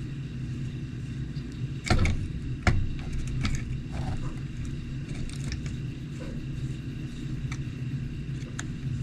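Small clicks and knocks of metal parts and a screwdriver being handled while the mounting screws of a replacement RC truck motor are started, over a steady low hum. The two loudest knocks come about two seconds in, with lighter clicks scattered after.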